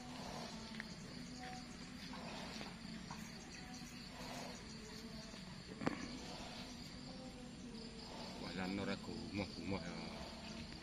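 Insects chirping in a steady high-pitched trill, with faint voices talking near the end and one sharp click about six seconds in.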